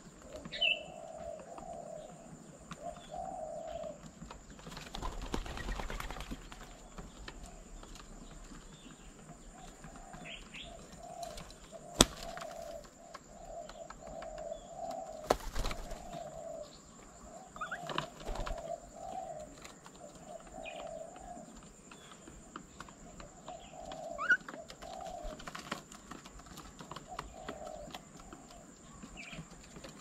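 Doves cooing in low phrases repeated over and over, with bursts of wing flapping as birds take off and land. A few short high chirps come in between, and there is one sharp tap about twelve seconds in.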